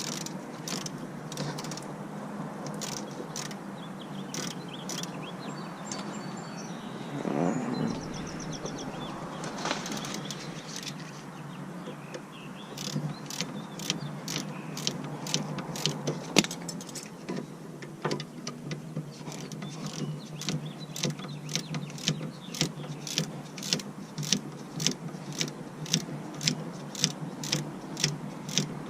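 Ratchet wrench clicking in steady, evenly spaced strokes, about two a second, from a little under halfway on, as bolts on a replacement brake caliper are run in. Before that come scattered metallic clicks and a brief scrape of tool handling.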